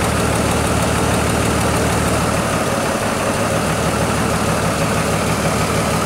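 Chevrolet 4.2-litre inline-six engine idling steadily and a little unevenly, with a constant misfire on cylinder number two.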